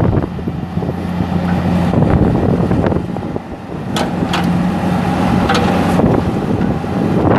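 Bobcat 337G compact excavator's Kubota V2003 four-cylinder diesel running steadily while the boom and bucket are worked, with a few sharp metallic clicks about four to six seconds in and a thin whine from about four seconds in.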